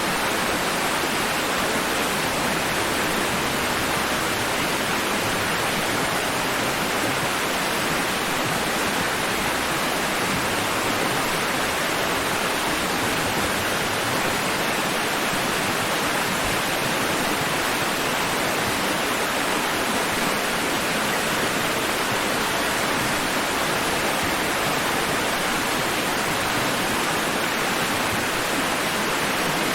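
Steady rushing water, an even hiss that holds at one level without swells or breaks.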